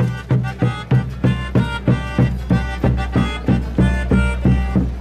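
Andean folk band music: a bass drum beating a steady rhythm about three strokes a second under a sustained melody.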